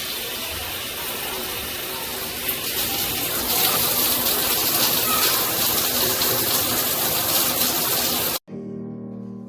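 Water spraying from a SparkPod pressure-boosting shower head: a steady hiss that gets louder about three seconds in. Near the end it cuts off abruptly and instrumental music begins.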